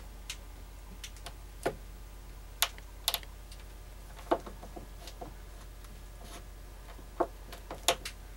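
Irregular clicks and small metallic knocks from pliers and wire being handled while a ground wire is connected to a boat's bronze thru-hull valves, over a low steady hum.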